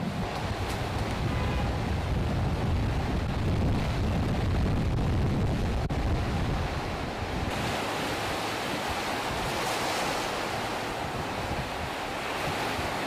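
Surf breaking and washing in the shallows, with wind buffeting the microphone.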